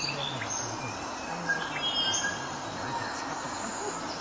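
Background hubbub with a few short bird chirps about two seconds in and faint murmuring voices underneath.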